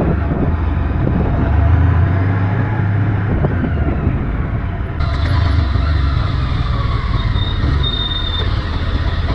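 Motorcycle running on the road while riding, a steady low engine rumble mixed with wind rushing over the microphone; a brighter hiss joins about five seconds in.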